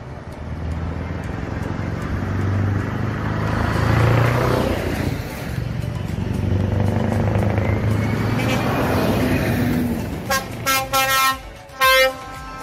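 Lorries driving past one after another, engine and tyre noise swelling as each passes. Near the end a truck's air horns sound in several short blasts.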